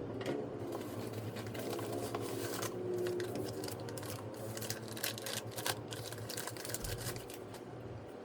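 Irregular clicks and small knocks from hands handling hard plastic drone parts and packaging, over a steady low hum.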